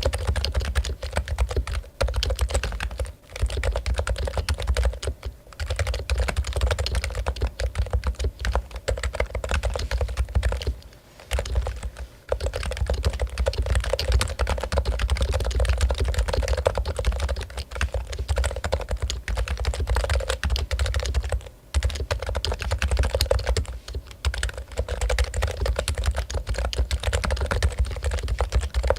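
Typing on a Topre Realforce keyboard, whose keys use electrostatic capacitive rubber-dome switches. The keystrokes come quickly and densely, with a few brief pauses, the longest about eleven seconds in.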